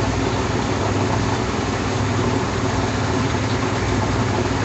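1962 Bendix Economat washing machine running with a steady low hum during its vacuum extraction stage, when the rubber tub is drawn in to squeeze water from the clothes; the owner says it seems to be pulling a vacuum.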